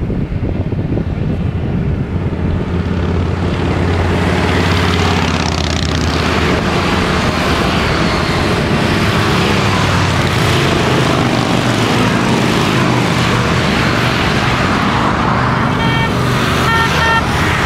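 A group of Harley-Davidson V-twin motorcycles riding past on a highway, their engines building from a distant drone to the loud, steady sound of many bikes passing close. A vehicle horn toots twice near the end.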